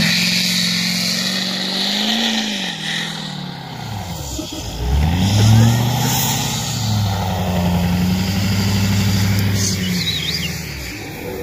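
Duramax 2500 HD pickup's 6.6-litre turbo-diesel V8 revving under load as the truck climbs a snowy, muddy hill. The revs rise and fall: they drop away about four seconds in, climb again and hold, then fall near the end.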